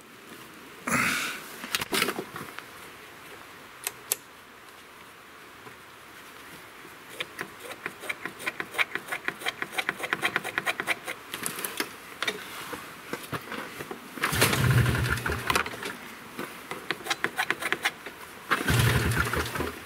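Yamaha Bravo 250 snowmobile's two-stroke engine being pull-started: two hard pulls on the recoil starter, about fourteen and eighteen seconds in, turn the engine over without it catching. A run of rapid light clicking comes before the pulls.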